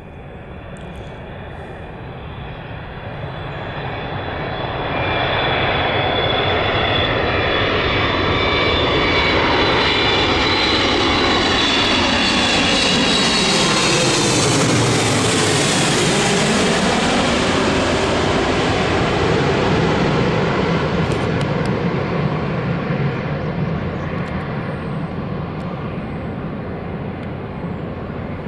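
Boeing 777F freighter's twin GE90 turbofans passing low overhead on approach. The jet rumble swells over about five seconds and stays loud. A high fan whine drops in pitch about halfway through as the aircraft goes by, and the sound eases off near the end.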